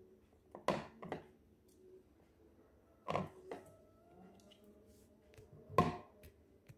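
Three sharp knocks a few seconds apart, with a few softer taps between, from a handheld plastic scoop against the aquarium as a Channa marulioides snakehead is teased with it.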